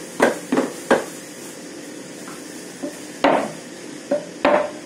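Sharp knocks and clatters of kitchenware striking: three quick knocks in the first second, then three more in the last two seconds.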